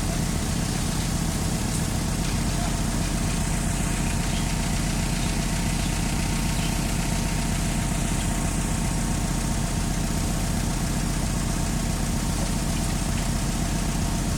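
Diesel engine idling steadily, a low even drone that holds unchanged throughout.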